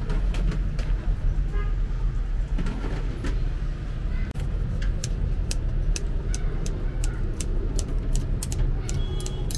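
Steady low rumble of street traffic. Over it come light clicks and clinks of a metal fork and scissors against a ceramic bowl and a metal serving tray, more frequent in the second half.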